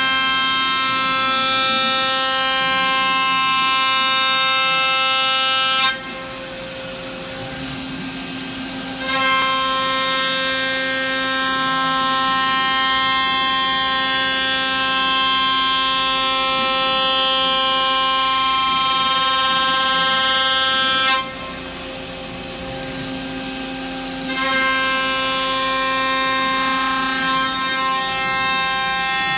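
KOMO CNC router spindle milling aluminium, a steady high whine with many overtones. The cutting whine breaks off twice, about six seconds in and again about twenty-one seconds in, for roughly three seconds each time, leaving a quieter hiss before the cut resumes.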